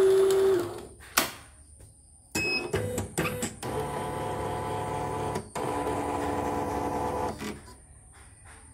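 CNY E900 portable embroidery machine responding to its start button: a loud beep at the start, a few clicks as the mechanism engages, then its motors running steadily in two spells of about two seconds each with a short break between them.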